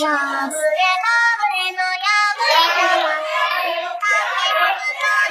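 A high, child-like voice singing a melody without a break.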